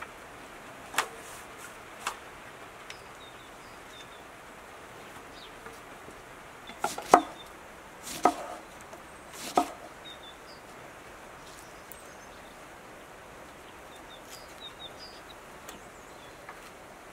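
Kitchen knife slicing a lemon and knocking on a wooden chopping block: a handful of sharp knocks, the loudest clustered around the middle.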